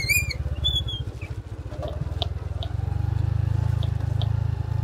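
Motorbike engine running at low speed on a dirt track, its firing pulses growing louder about two and a half seconds in. A bird chirps at the very start.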